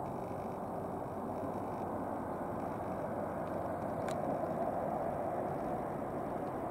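Airbus A330-300 jet engines running at taxi power as the airliner rolls along the taxiway: a steady, even engine noise that swells slightly about four seconds in.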